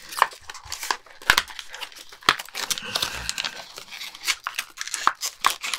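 Clear plastic clamshell packaging being pulled and flexed apart by hand, crinkling and crackling with many irregular sharp snaps.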